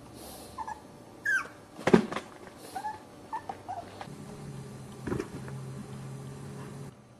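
Small puppies playing, giving a few short high yips and whimpers, some falling in pitch, in the first few seconds, with sharp thumps about two seconds in (the loudest) and again about five seconds in. A low steady hum runs under the second half.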